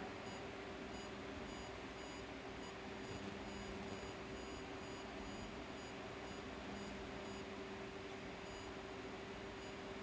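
A steady electrical hum with a faint hiss from the running microwave test bench equipment, the klystron mount's cooling fan and power supply.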